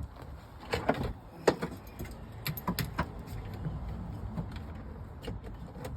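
Sharp plastic clicks and knocks from a dash trim face plate and its wiring connector being handled and turned over, most of them in the first three seconds, over a steady low rumble.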